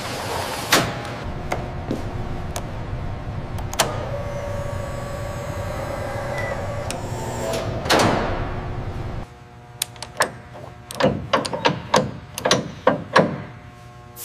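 Steady machine hum with a few sharp clicks, and a falling whoosh about eight seconds in. After that the hum drops away and about ten sharp metallic clicks and clunks follow in quick, uneven succession.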